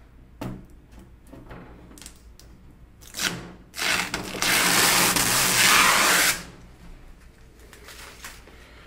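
Protective plastic film being peeled off the clear side-panel window of an NZXT Source 530 computer case. Small crackles come first, then a loud, even peeling noise from about four seconds in, lasting about two and a half seconds.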